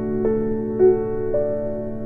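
Background music: a slow keyboard melody, three notes struck about half a second apart and left to ring over a held low note.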